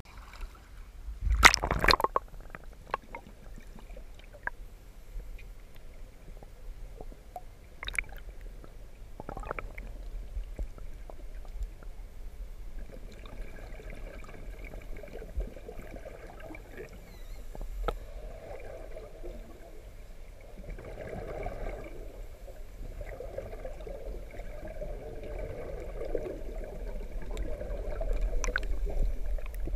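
Muffled underwater sound of a swimming pool heard through a submerged camera: a splash about two seconds in, then a steady low water rumble with the bubbling of scuba divers' exhaled regulator bubbles, growing louder toward the end.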